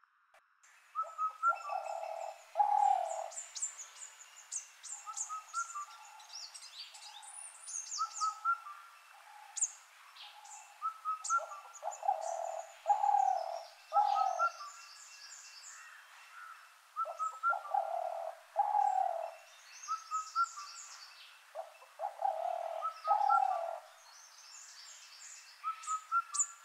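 Birds calling: a low hooting call of two or three notes repeats every few seconds over a busy chorus of high chirps and trills.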